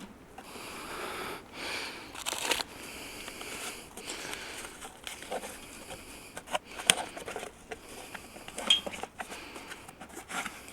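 Rustling and crinkling with scattered clicks and knocks, the sound of a pork loin and its wrapping being handled and set up as a target. The sharpest knocks come about two and a half, seven and nine seconds in.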